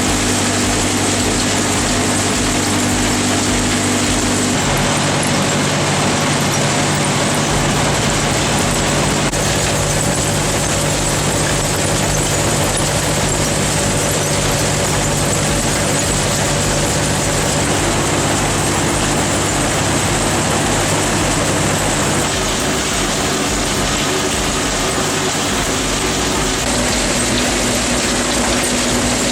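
Heavy diesel-powered processing machinery running, with a loud, even wash of mechanical noise. Over it, the engine's steady hum shifts in pitch a few times.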